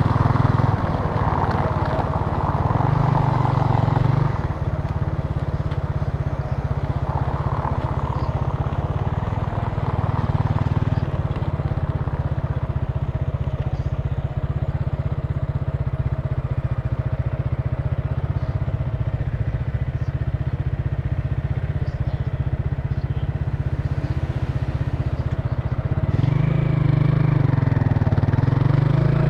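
Italika TC300 motorcycle engine running on the move, heard from the rider's seat. It is louder under throttle for the first few seconds and again near the end, and lighter and steady in between.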